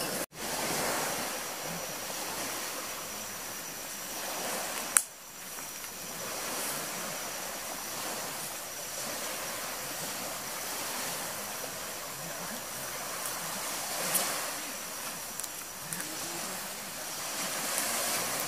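Sea waves washing on the shore, a steady hiss of surf with a faint steady high tone behind it. A sharp click comes about five seconds in.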